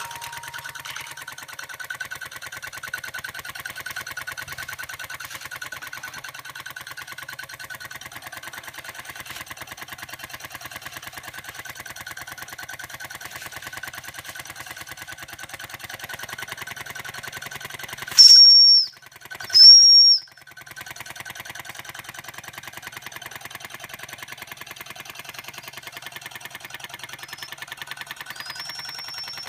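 Small live-steam model vertical steam engine running with a rapid, even chuffing. About two-thirds of the way in, two short, loud, high-pitched whistle blasts sound from its steam whistle, and a fainter steady whistle or hiss starts near the end.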